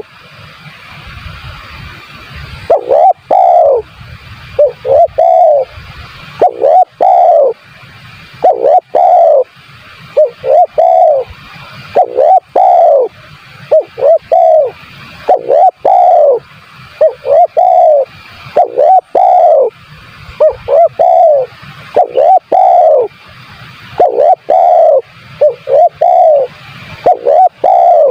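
Spotted dove (tekukur) cooing: a phrase of two or three arched coo notes repeated every couple of seconds, starting about two and a half seconds in. The coos are very loud, a recorded lure call used to draw in doves.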